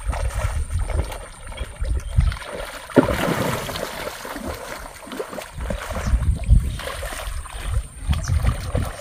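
Shallow water sloshing and splashing as an angler wades and the hooked fish churns the surface during the fight, with a sharp splash about three seconds in followed by a spell of spray.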